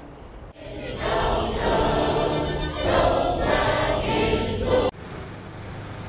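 A large group of voices singing together in unison, starting about half a second in and cutting off abruptly about five seconds in, leaving a quieter low background.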